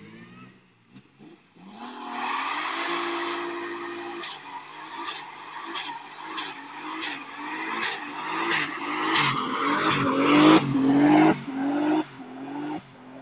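A car doing a burnout: the engine is held at high revs, its pitch climbing and dropping back about twice a second, while the spinning rear tyres squeal. It gets louder towards the end, after a near-silent first second or so.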